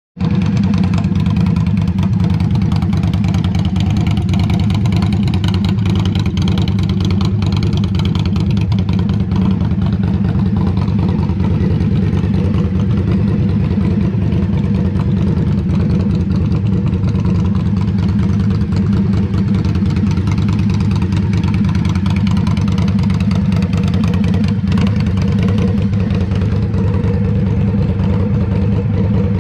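A 2023 Indian Scout Bobber's V-twin engine idling steadily in neutral through its stock exhaust, with no revving.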